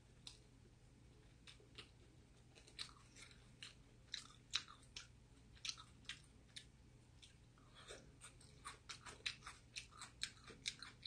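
Faint close-miked chewing of a mouthful of pizza: scattered short wet clicks and crunches, coming faster in the last few seconds.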